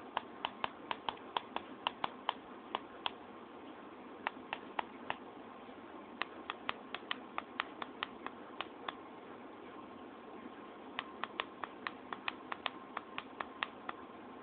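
Typing on a computer keyboard: runs of sharp key clicks, about three or four a second, broken by pauses, over a steady hum.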